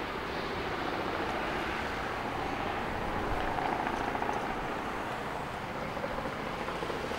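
Jet airliner's engines droning steadily overhead, swelling a little in the middle.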